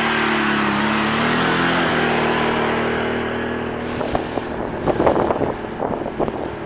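Can-Am 650 ATV engine running steadily as it goes by, then fading away. About four seconds in, a run of irregular short knocks and rattles follows.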